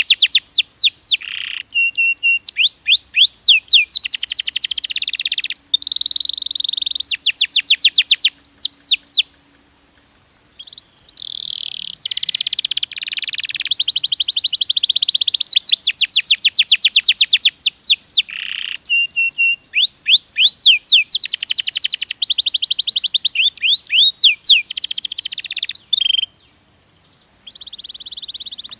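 Domestic canary singing a long, high-pitched song of rapid trills and rolls, broken by short pauses about ten seconds in and near the end.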